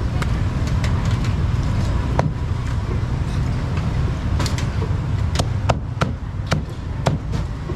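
Cleaver chopping a roasted bird on a thick wooden chopping block, a string of irregular sharp knocks, several close together in the second half. A steady low rumble of background traffic runs under it.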